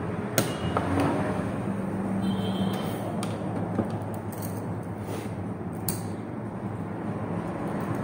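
A few scattered small clicks and knocks from handling wires and switch parts during the wiring work, over a steady low hum.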